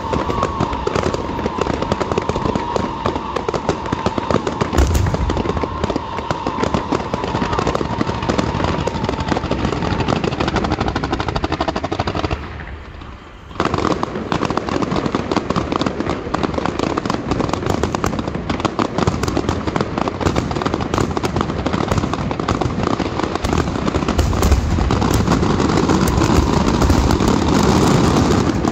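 Fireworks and firecrackers going off in a dense, continuous crackle of rapid bangs, with a short break about twelve seconds in and heavier low booms near the end.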